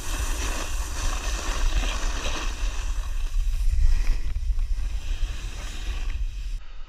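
Wind buffeting a pole-mounted GoPro action camera, with the rush of a snowboard sliding over packed snow while riding downhill; a deep rumble underneath, briefly louder a little past halfway.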